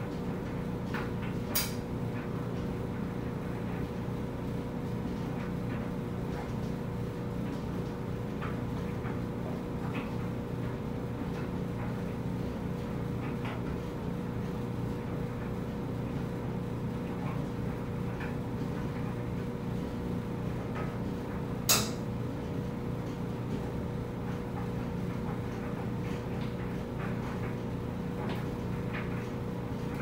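Front-loading clothes dryer running: a steady hum of the motor and turning drum with a constant mid-pitched tone, as the load tumbles. Faint ticks throughout and two sharper knocks, one near the start and one about two-thirds of the way through.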